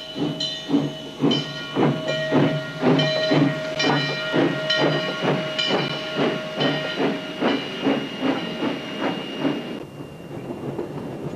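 Steam locomotive working: rhythmic exhaust chuffs, about three a second, over a steady hiss of steam, with a steady high tone running under them. The chuffing and the tone fade near the end.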